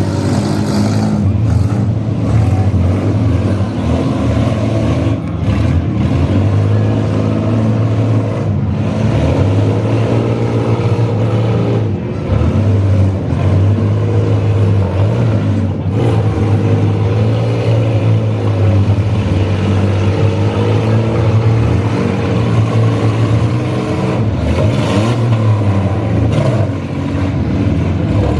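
Several minivan engines running and revving hard in a demolition derby, their pitch rising and falling continuously.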